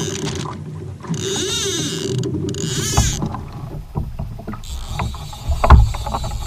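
Water splashing and lapping against a plastic fishing kayak, with irregular knocks and thumps of handling on the hull in the second half.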